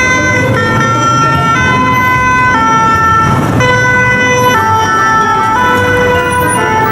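Toy ambulance's electronic two-tone siren sounding, stepping between a high and a low pitch about once a second.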